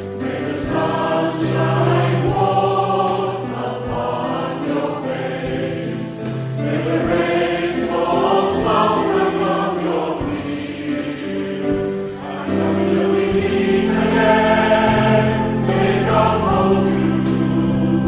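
Background music: a choir singing held chords.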